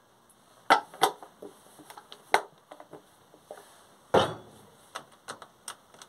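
Beko front-loading washing machine in test mode giving a string of sharp clicks and knocks at irregular intervals, the loudest a heavier thump about four seconds in.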